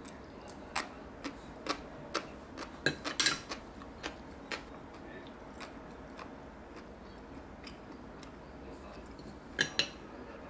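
Light clicks and taps: a quick, irregular run over the first few seconds, then two more close together near the end.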